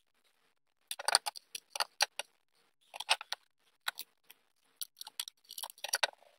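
A hand screwdriver turning small 6 mm screws through a metal disc into wood: irregular clicks and short scrapes of the tool tip on the screw heads, starting about a second in.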